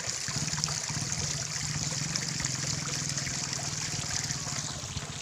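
Steady background noise: a continuous high hiss over a low, even hum, with no distinct events.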